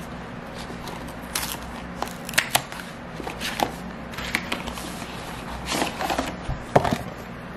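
A cardboard product box being cut with a box cutter, its flap torn open and a hard-shell case slid out: scattered scrapes, rips and light knocks.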